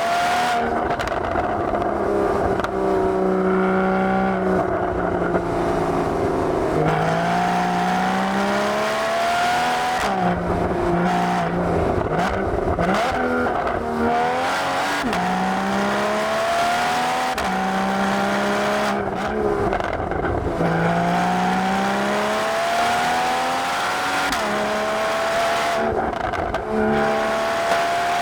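Porsche Boxster GTS (981) 3.4-litre flat-six exhaust under hard acceleration, its note climbing in pitch through each gear and dropping at every upshift, about seven times in a row.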